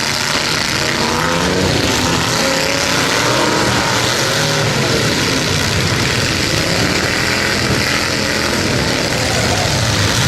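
Several demolition derby trucks' engines running and revving together, their pitches rising and falling and overlapping in a loud, continuous din.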